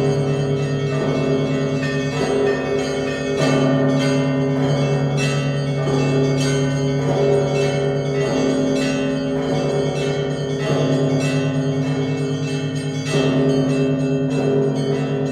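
Russian Orthodox church bells rung in a festive peal (trezvon), their clappers striking the fixed bells. A deep bell sounds about every two and a half seconds beneath a quick, continuous pattern of smaller bells.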